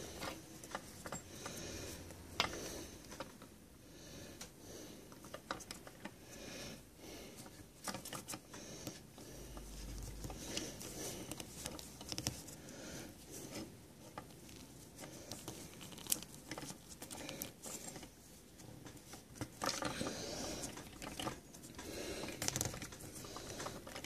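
Nylon paracord rustling and rubbing as its ends are fed and pulled through a tight weave, with irregular scrapes and small sharp clicks from a thin metal fid.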